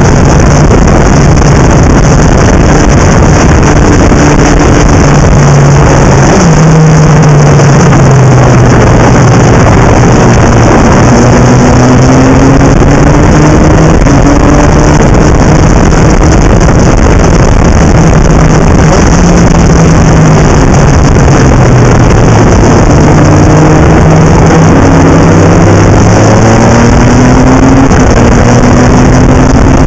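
Legend car's Yamaha motorcycle engine heard from on board at racing speed. Its pitch climbs repeatedly, then drops as the driver shifts and lifts for corners, over a steady loud rush of wind and road noise.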